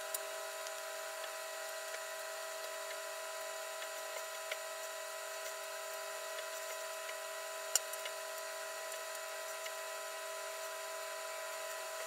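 Old microwave oven running with a steady electrical hum of several tones held together. A few sharp crackles stand out, the loudest about eight seconds in, from a CD arcing in the cavity.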